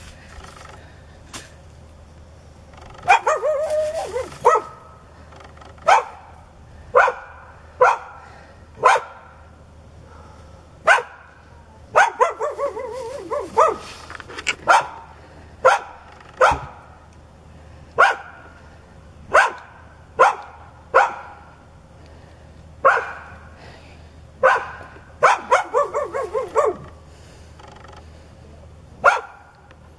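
A dog barking aggressively, with single sharp barks every second or so and three quick runs of rapid barks: one about three seconds in, one near the middle, and one a few seconds before the end.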